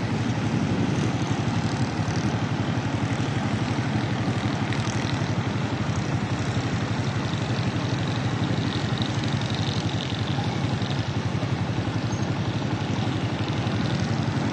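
Road traffic and construction-site vehicles: a dump truck, motorcycles and cars running, heard as a steady low engine rumble with traffic noise over it.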